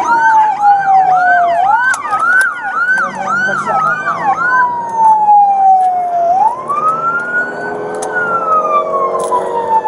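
Two emergency-vehicle sirens: one slow wail that falls and rises over several seconds, and a fast yelp repeating about three times a second that stops about halfway through.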